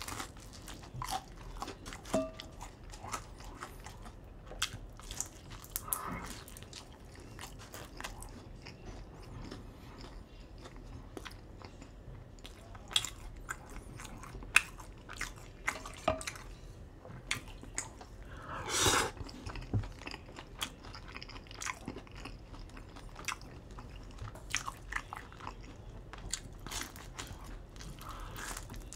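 Close-miked chewing and biting of pizza: irregular crunches from the baked crust and chewing noises, with one longer, louder noisy burst about two-thirds of the way through.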